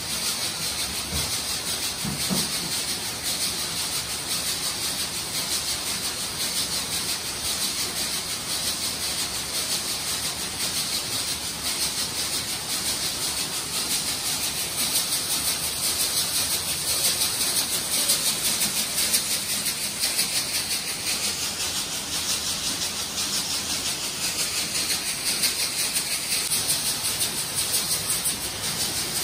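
Steady hissing, rattling noise of running workshop machinery that does not change.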